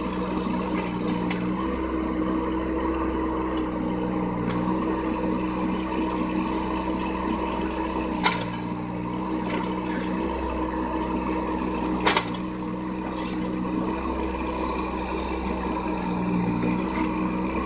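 John Deere 17D mini excavator's diesel engine running steadily while it digs, its pitch dipping slightly at times. Two sharp knocks stand out, about eight and twelve seconds in.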